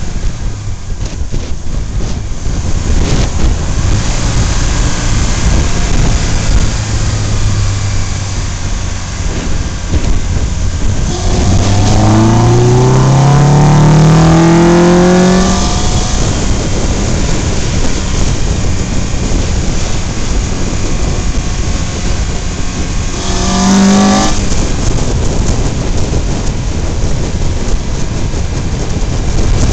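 Wind rushing over the microphone of a moving motorcycle, with the motorcycle's engine rising in pitch under acceleration for a few seconds around the middle, and a short rev later on.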